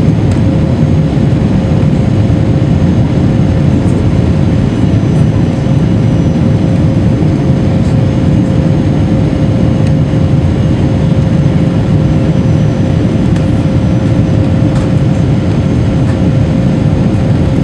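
Airbus A330 cabin noise during the climb after takeoff: the steady low rush of the jet engines and airflow, with a steady humming tone through it.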